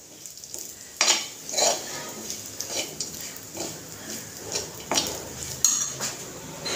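Metal spoon scraping and clinking against a metal kadhai while stirring coarsely ground roasted peanuts, in irregular strokes with the sharpest about a second in and near the end.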